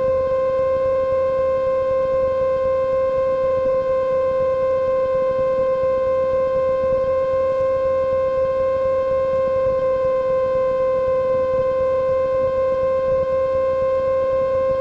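A steady, unwavering tone held at one pitch, with a faint low drone beneath it; it cuts in and out abruptly.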